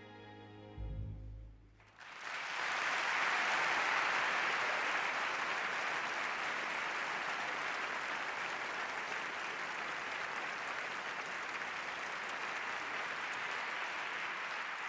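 An orchestra's final held chord fading away, with a deep low note about a second in. Then, about two seconds in, the audience bursts into applause that carries on steadily.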